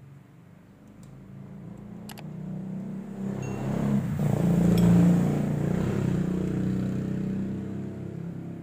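A motor vehicle's engine running, growing louder to its loudest about halfway through and then slowly fading, as a vehicle passing by.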